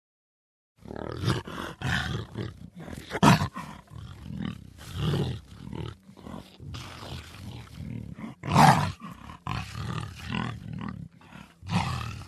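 Black jaguar giving a series of rough, irregular roaring calls, starting about a second in, with the loudest calls about three seconds in, near nine seconds and near the end.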